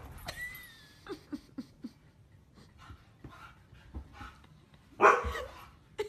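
A pet dog making a few short, quiet yelping and panting sounds, then one louder bark about five seconds in.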